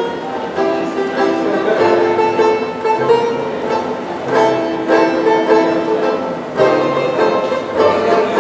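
Music: a melody of held pitched notes that change every second or so.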